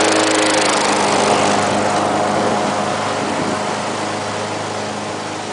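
Lawn-Boy walk-behind lawn mower engine running steadily, growing gradually fainter.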